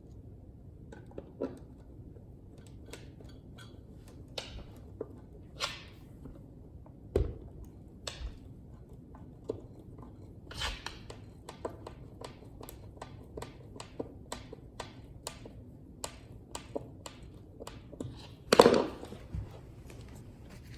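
Hand work on hardware: scattered light clicks, taps and knocks of tools and parts being handled, with a run of clicks about two a second in the middle and one louder knock near the end.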